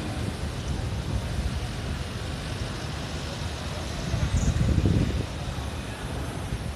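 Low, steady rumble of city traffic, swelling for about a second near the middle.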